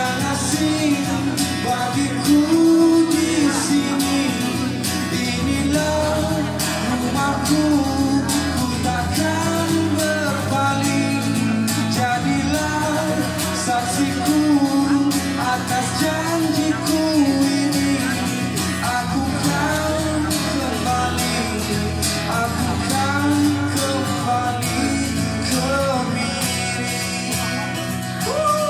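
A man singing a Malaysian indie pop ballad live, accompanying himself on a strummed acoustic guitar.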